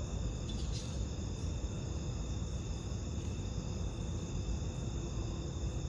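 Steady high-pitched chorus of insects such as crickets, over a constant low rumble.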